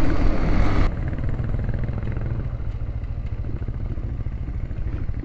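Motorcycle engine running steadily on the move, a fast even pulsing of its firing. About a second in, a louder rush of noise stops abruptly, leaving the engine on its own.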